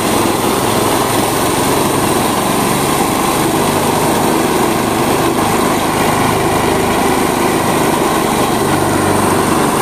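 Engine-driven mini rice thresher with double blower running steadily as bunches of rice stalks are fed into its drum, its small engine held at speed under load.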